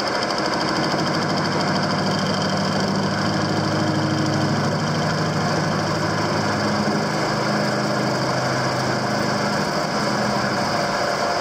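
Metal lathe running, its tool taking a heavy hand-fed interrupted facing cut across an off-centre part in a four-jaw chuck. The tool strikes the work on every revolution, giving a steady cutting noise with a rapid, even pulsing.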